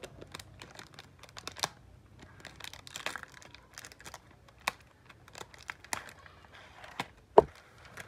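Plastic-wrapped cardboard cable boxes being handled: crinkling of the plastic wrap with a run of light clicks and taps, and one louder knock about seven seconds in.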